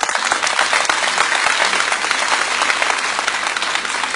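Audience applauding: a full, steady round of clapping from a large crowd.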